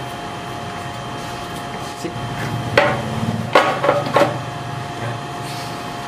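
A few sharp clacks and knocks, about three, as the motorcycle's red side cover is handled and pulled away from the frame, over a steady faint hum.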